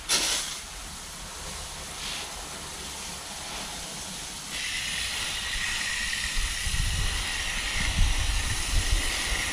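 Garden hose spray nozzle hissing as it showers water onto the soil of a newly planted raised garden bed. The spray gets louder and brighter about halfway through, and there is a low rumble near the end.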